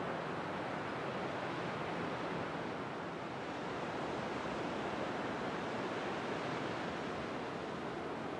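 Ocean surf breaking on a sandy beach: a steady rushing wash with no single wave standing out.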